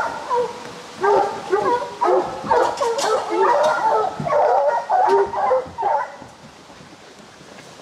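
A pack of English bear hounds baying, several voices overlapping, on a bear that has come down from the tree. The baying dies down about six seconds in.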